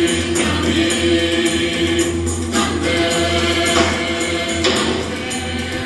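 Recorded music with singing voices over a steady beat.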